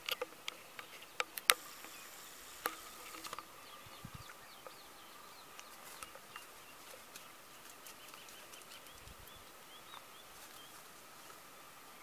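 Faint outdoor farm ambience: a steady thin insect drone with faint bird chirps, and a few sharp clicks in the first few seconds, the loudest about a second and a half in.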